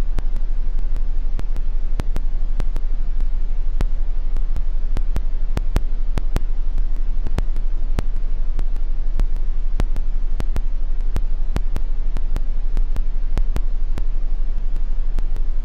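A steady deep hum with sharp clicks crackling over it at irregular intervals, a few a second.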